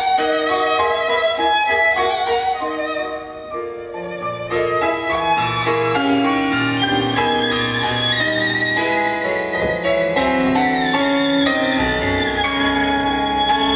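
Live violin and guitar music: the violin holds long notes with vibrato over shorter plucked notes, and a low bass line comes in about four seconds in.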